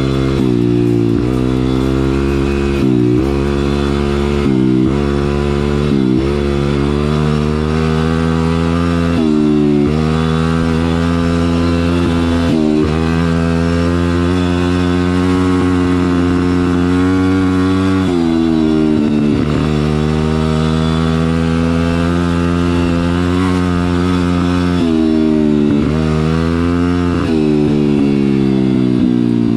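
Stomp WPB 140 pit bike's small four-stroke single-cylinder engine under way, its pitch climbing through each gear and dropping sharply at each shift or throttle lift, about eight or nine times.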